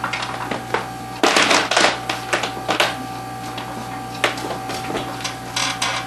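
Kirby upright vacuum cleaner running, its motor giving a steady hum and whine, with irregular clicks and clatter throughout.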